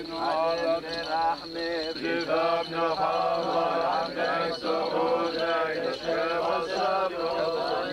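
Syriac Orthodox clergy chanting a prayer for the departed together, an unbroken melodic liturgical chant of several voices.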